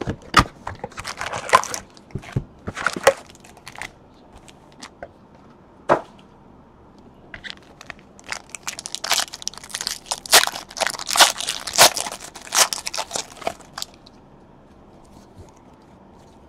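Hands opening a trading-card hobby box and handling its stack of wrapped card packs: tearing and crinkling of cardboard and pack wrappers with scattered clicks. There is one spell in the first few seconds and a busier one through the middle.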